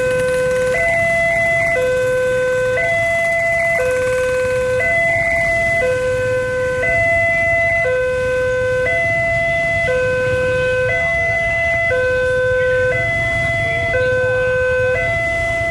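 Railway level-crossing warning alarm sounding from the horn loudspeaker on the crossing's signal post: an electronic two-tone signal that alternates between a low and a higher tone, each held about a second. It signals that the barriers are closing for an approaching train.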